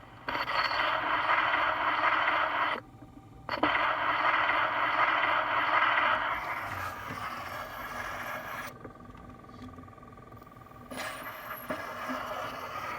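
Phonograph playing back a freshly cut acetate disc: mostly loud, scratchy surface noise with no clear voice, breaking off briefly twice and sinking lower for a couple of seconds near the end. The wide 3 mil cutting stylus has left grooves that the needle locks in.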